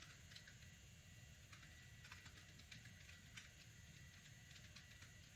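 Faint computer keyboard typing: scattered, irregular keystrokes over a low steady hum.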